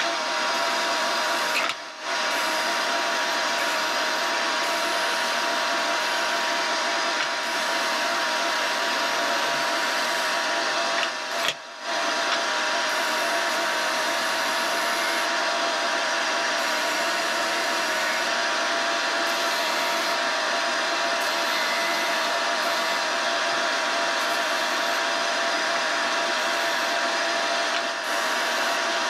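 Ryobi RBDS4601G belt and disc sander running steadily, its 150 mm sanding disc grinding the end of a wooden block, with a steady whine over the sanding noise and the dust-extraction vacuum running on its dust port. The level dips briefly twice.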